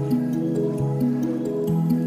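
Background music: a gentle melody of held notes over a light ticking beat.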